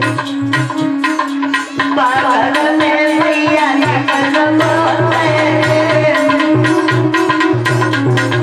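Indian folk dance music with a fast hand-drum beat and a wavering melody line that comes in about two seconds in.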